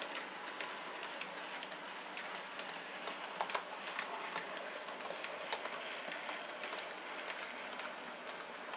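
Model railway freight wagons rolling along the track behind a Bachmann OO gauge Class 20 diesel model: a steady running noise with many irregular small clicks as the wheels pass over the rail joints.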